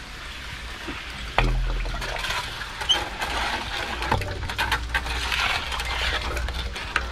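Sludge bailer being hauled up hand over hand through a plastic well pipe: sharp knocks and small clinks as it bumps and scrapes against the pipe, with a low rumble underneath from about a second and a half in.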